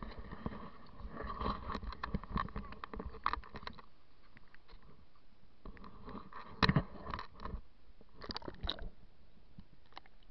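Handling noise from an underwater camera being moved about: irregular knocks, taps and scrapes against its body. The loudest knock comes about two-thirds of the way through, followed by a quick cluster of sharp ticks.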